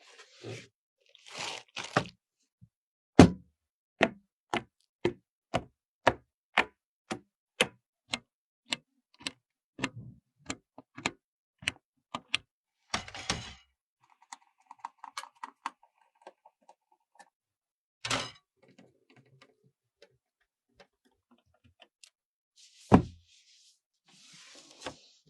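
A run of sharp clicks, about two a second, for some ten seconds, then a brief rustle, scattered faint clicks and two louder knocks, the second near the end the loudest.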